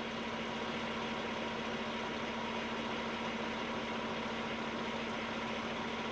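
Semi truck's diesel engine idling, a steady even hum with a constant low tone, heard from inside the cab.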